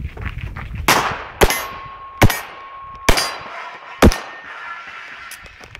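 Five pistol shots, a little under a second apart, each sharp and loud with a short echo. A steady ringing tone lingers between the second and fourth shots.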